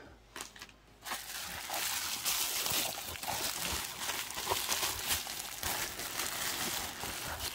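Plastic packaging being handled, a steady soft rustle with a few small clicks, starting about a second in.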